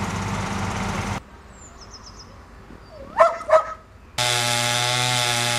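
A dog barks twice in quick succession. Before it, a small engine runs and cuts off suddenly about a second in; after it, from about four seconds in, an engine runs steadily.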